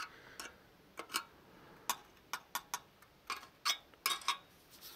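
Irregular light clicks and taps, about a dozen, from a screwdriver touching parts on a circuit board as the board is handled.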